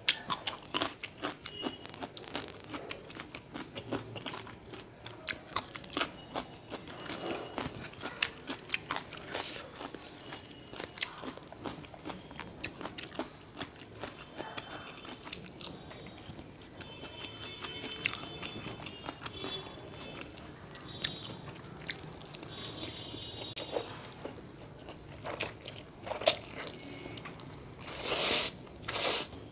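Close-up eating sounds: crisp crunching bites and chewing of a raw carrot stick early on, then wetter chewing of noodles. Two long slurps of noodles near the end.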